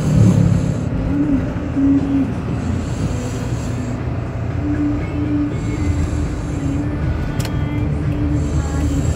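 A small child snoring in deep sleep, with a breath about every three seconds over a steady low rumble.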